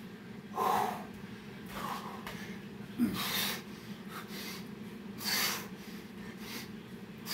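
A man breathing hard during burpees: short, forceful exhales about every one to two seconds, the sharpest about three seconds in, over a low steady hum.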